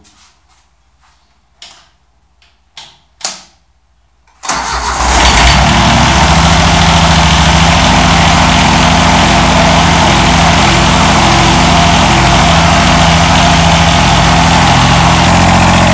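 Three sharp clicks, then about four and a half seconds in the 1990 John Deere 332's three-cylinder diesel engine starts up and settles into steady running.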